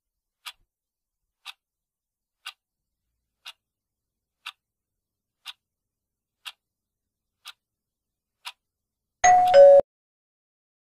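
Countdown-timer sound effect ticking once a second, nine faint ticks. Near the end comes a short, much louder two-note tone that falls in pitch as the timer runs out.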